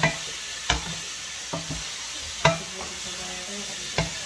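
Beef chop suey sizzling in a wok while two wooden spatulas stir it, knocking sharply against the pan four times.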